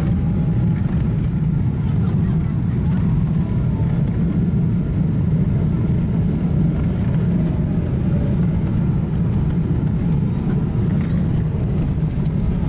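Jet airliner's landing roll heard from inside the cabin, spoilers up just after touchdown: a loud, steady low rumble.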